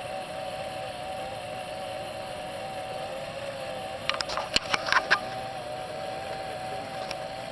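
Small 12-volt DC motor of a fire tornado rig, overvolted to 32 volts, running with a steady, slightly wavering whine over the hiss of the spinning flame. A quick run of sharp clicks comes about four seconds in.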